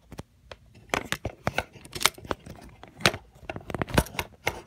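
Hard plastic toy being handled: a quick, irregular run of small clicks and knocks, the loudest knock about four seconds in.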